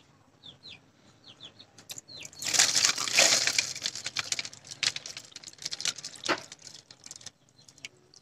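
Water poured from a plastic bucket into a shallow plastic tray lined with pebbles, splashing. The pour starts about two seconds in, is loudest for the first second or so, then breaks into uneven splashes and trickles that stop a little before the end.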